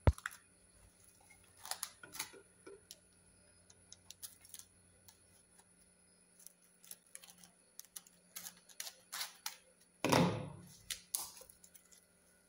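Plastic cling film crackling and rustling as it is pulled from its roll and pressed over a glass bowl: scattered small crinkles and clicks, with a longer, louder rustle about ten seconds in.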